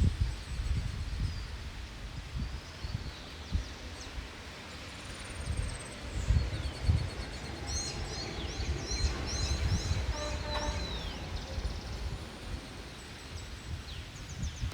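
Wild birds calling over a steady outdoor hiss, with a run of quick, repeated, falling high notes from about eight seconds in. Irregular low rumbles come and go throughout.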